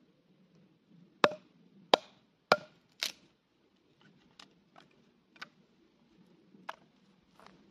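Cold Steel Trail Hawk tomahawk splitting a small stick into kindling against a log: four sharp wooden knocks about half a second apart, then lighter clicks and clatters as the split pieces are handled and set down.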